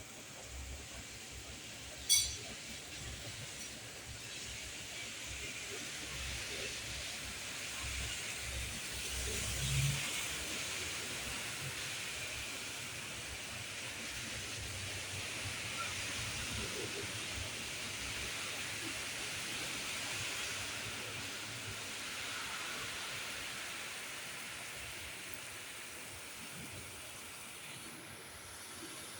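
Steady rain falling, an even hiss that swells and then eases off, with one sharp click about two seconds in.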